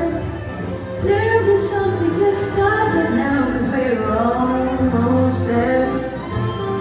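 A song with female vocals over backing music plays throughout, accompanying a group dance.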